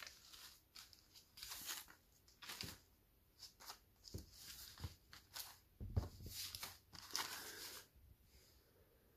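Rustling and crinkling as basketball shorts and their plastic packaging are handled: a string of short, irregular rustles, a little louder about six seconds in.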